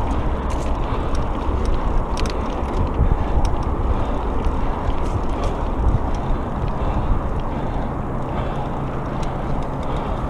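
Mountain bike tyres rolling over a dirt singletrack: a steady rumble and hiss, with scattered clicks and rattles from the bike over the bumps.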